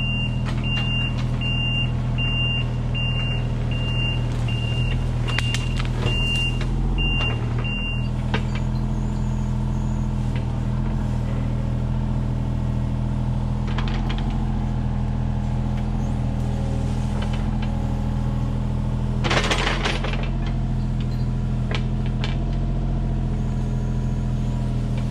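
Kubota U35-4 mini excavator's diesel engine running steadily under work. For about the first eight seconds a high-pitched beeper sounds in a rapid repeating pattern over it, and a short burst of clatter comes about two-thirds of the way through.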